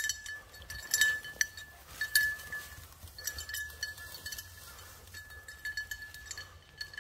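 Bird dog's collar bell jingling at irregular moments, one bright ringing pitch struck again and again as the dog moves through the cover.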